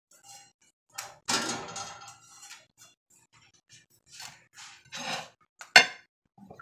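Spatula scraping and clinking against a comal (flat griddle) as a gordita is worked and lifted off, with a short scrape a little over a second in, a few light clinks, and one sharp clank near the end.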